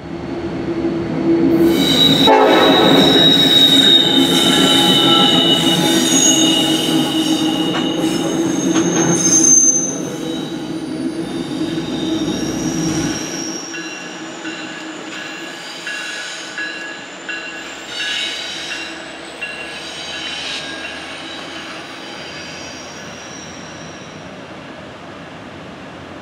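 A pair of Norfolk Southern diesel-electric pusher locomotives moving around a curve, engines running, with steady high-pitched wheel-flange squeal on the curved rail. Loudest in the first ten seconds, then fading gradually.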